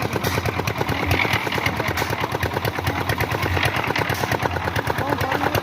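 Concrete mixer machine's engine running steadily with a rapid, even chugging.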